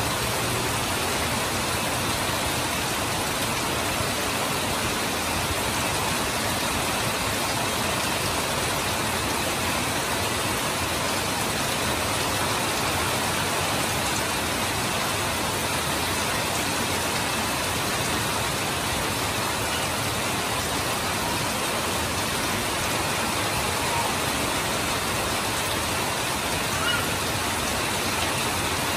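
Heavy rain falling steadily, with water pouring off the roof eaves.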